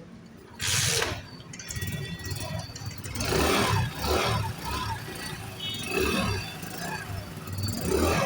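Honda Pridor motorcycle's single-cylinder four-stroke engine being started, with one loud burst about a second in. It then catches and runs with a steady low pulsing idle and is blipped up several times.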